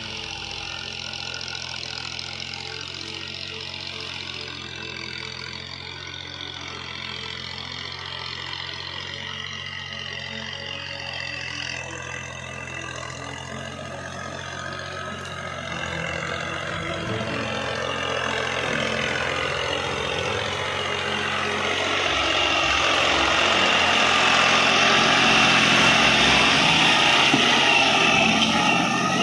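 Diesel tractor engine running as the tractor pulls a cultivator down the row toward the listener, growing steadily louder over the second half until it is close by.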